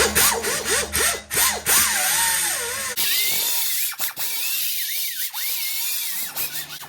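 Die grinder grinding an exhaust pipe clean for welding, its whine dipping and rising in pitch as it bites into the metal. From about three seconds in it runs higher, with a harsh grinding hiss.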